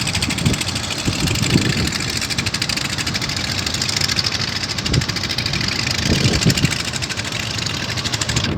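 Fishing boat's engine running steadily with a fast, even firing beat, with a few low thumps now and then.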